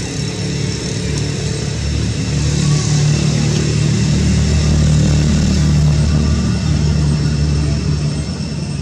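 A motor vehicle engine running steadily with a low hum, growing louder through the middle and easing off near the end.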